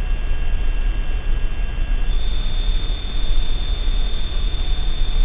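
Loud steady hiss and low hum from a surveillance camera's microphone. About two seconds in, a thin, high, steady tone starts.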